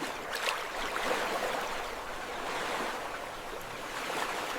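Steady rushing noise of flowing water, a stream-like ambience, with a few faint clicks.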